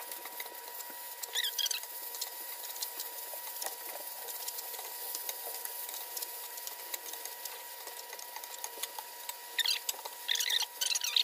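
Chicken sizzling and crackling as it fries in a pot, with short high squeaks about a second in and again near the end.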